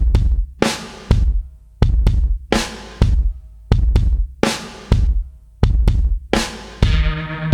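Music: heavy drum beat with deep kick and snare hits in a repeating pattern, with a fuller bass line coming in near the end.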